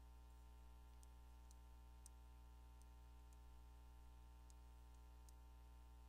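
Faint, irregular clicks of a TI-73 Explorer graphing calculator's keys being pressed, about seven in six seconds, over a steady low electrical hum; otherwise near silence.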